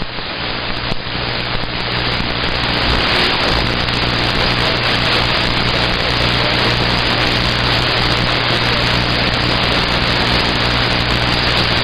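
Radio receiver static: a steady rushing hiss of band noise with a low hum underneath, swelling over the first few seconds and then holding steady, heard between transmissions on the CB band.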